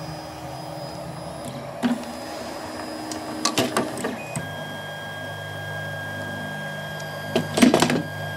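Prusa i3 DIY kit 3D printer running after its hotend and bed have heated: a steady mechanical hum that changes pitch about four seconds in, with a few short clattering clicks.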